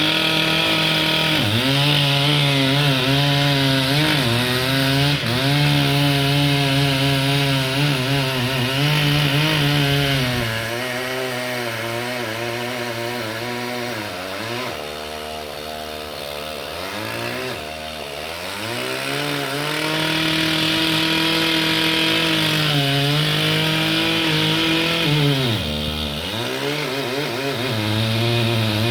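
Chainsaw running at high speed, cutting wood, its pitch dipping briefly several times. About ten seconds in it drops to a lower, quieter speed for several seconds, then revs back up.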